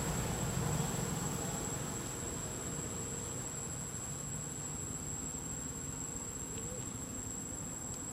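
Insects in the forest, buzzing with one steady high-pitched whine that does not change, over a faint even background hiss.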